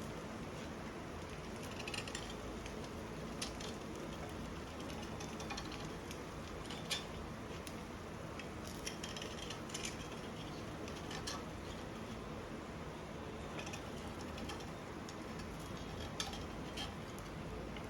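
Quiet room tone with a steady low hum, broken by scattered light clicks and clinks of small household objects being handled.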